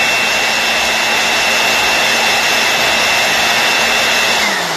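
400-watt electric blower running at full speed, a steady rush of air with a high whine. Near the end it is switched off and the whine falls in pitch as it spins down.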